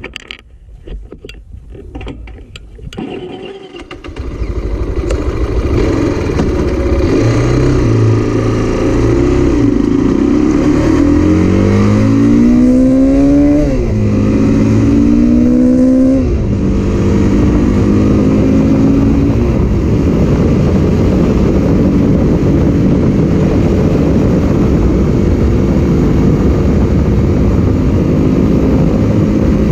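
Zongshen RX3 single-cylinder motorcycle engine accelerating hard after a quieter first few seconds. Its pitch climbs and drops sharply twice as the rider shifts up, then it holds a steady cruise, with wind noise rushing over the microphone.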